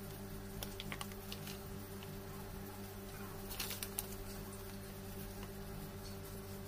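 Light clicks and taps of a small steel measuring cup and a plastic flour packet against a steel mixing bowl as flour is measured in. They come in two small clusters, near the start and around the middle, over a steady low hum.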